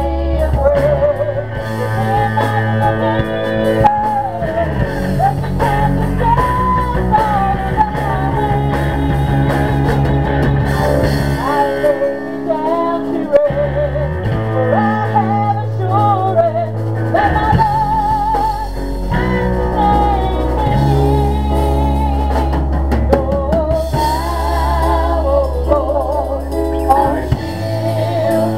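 Live gospel praise song: a woman sings the lead with vibrato, backed by a second woman's voice, electric guitar and low bass notes.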